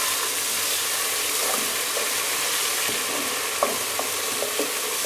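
Sliced onions and ginger-garlic paste sizzling steadily in hot oil in a large metal pot, stirred with a wooden spoon. A few light knocks of the spoon against the pot come in the second half.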